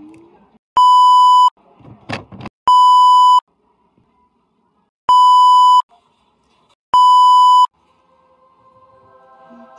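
Four loud censor bleeps, each a steady 1 kHz beep of well under a second, with a short burst of noise between the first two. Near the end a soft chord of steady held tones comes in.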